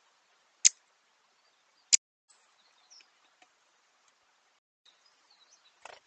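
Two sharp knocks just over a second apart, a great spotted woodpecker's bill striking the plastic feeder dish, followed by a few faint high bird chirps and a short falling call near the end.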